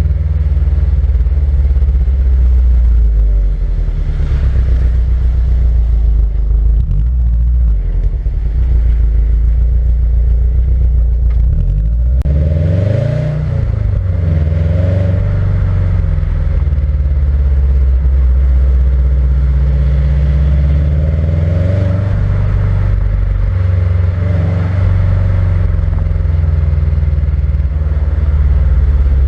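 Subaru WRX STI's turbocharged flat-four boxer engine on its stock exhaust, heard from under the car while cruising: a steady low drone over road noise. About twelve seconds in the engine note rises in pitch as it accelerates, then drops back.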